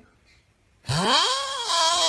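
Quiet at first, then about a second in a loud, drawn-out vocal sound that rises and then falls in pitch.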